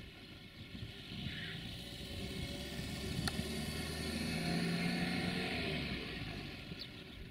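Diesel engine of an approaching LDE2100 (060-DA) diesel-electric freight locomotive running at low speed. Its low engine note swells about four to five seconds in and eases near the end, with a single sharp click a little after three seconds.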